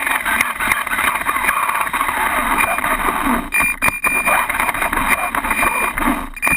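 Associated RC10 buggy's electric motor and drivetrain running, with tyre and chassis noise, heard from a camera mounted on the car. The noise drops out briefly twice, near the middle and near the end.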